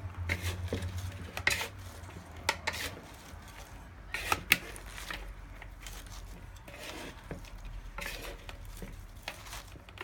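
A big spoon tossing chopped salad in a large bowl: irregular clinks and scrapes of the spoon against the bowl, a few of them sharper than the rest.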